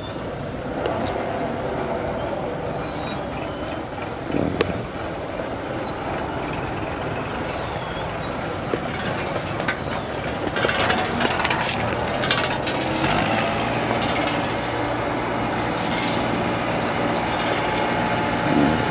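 Kubota L4508 tractor's diesel engine running steadily as it drives on steel cage wheels with a rear-mounted ditch-digging implement, with a stretch of metallic rattling near the middle.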